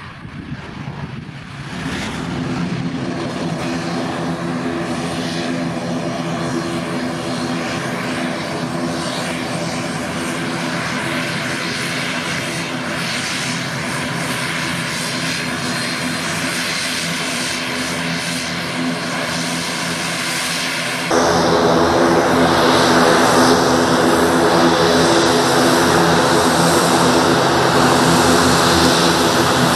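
ATR 42-500 twin turboprop, Pratt & Whitney PW127 engines with six-bladed propellers, taxiing on the ground after landing: a steady propeller drone with a low, even hum of tones. About 21 seconds in it jumps abruptly louder and harsher.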